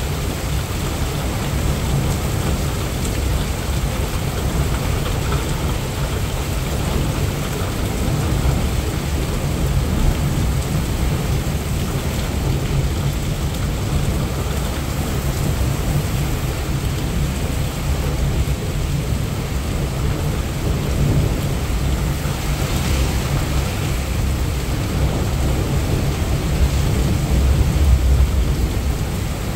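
Heavy rain pouring steadily, with a low rumble of thunder underneath that swells near the end.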